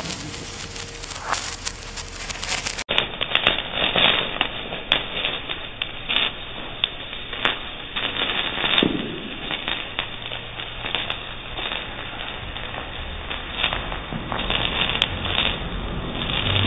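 Gudiya Asharfi matka anar, a ground fountain firework, burning: a steady spray of hissing sparks with many sharp crackles and pops.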